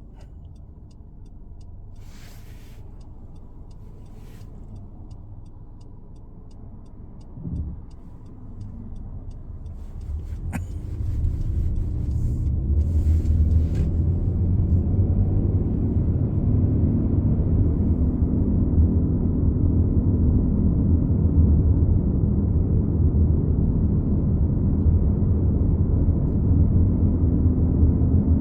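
Low humming drone from the rear of a 2015 Honda CR-V Touring while it is driven. It starts as a quiet rumble and grows much louder about ten seconds in, then holds as a steady hum.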